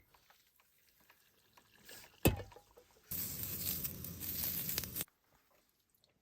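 A single sharp knock, then a steady rushing noise lasting about two seconds that stops abruptly.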